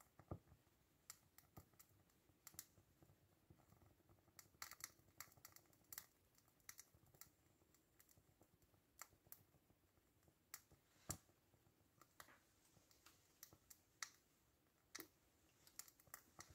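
Faint, irregular ticks and clicks from a small hand-built steam engine's boiler and firebox as it heats up, with no steady running rhythm.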